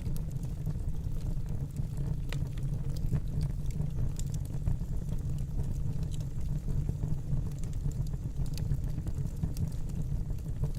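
Wood fire burning in a fireplace: a steady low rumble of the flames with scattered crackles and pops, roughly one every second or so.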